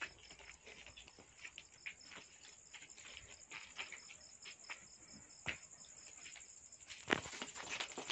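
Crickets chirping in a rapid, even, high-pitched pulse, with faint scattered taps and scuffles of footsteps on hard ground. The chirping stops about seven seconds in, and a few louder scuffles follow as the goats move off.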